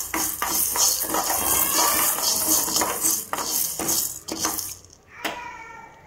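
Steel spoon stirring and scraping dry sago pearls around a metal pan as they roast: a dense rattling hiss with repeated scrapes that stops about five seconds in.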